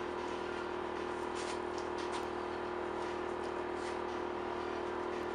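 A steady mechanical hum with a few faint, brief rustles and scrapes as chopped-strand glass-fibre mat is laid and pressed into wet resin.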